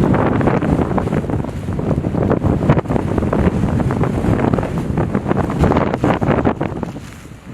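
Storm-force wind gusting and buffeting hard against the microphone in a snowstorm, dropping off near the end.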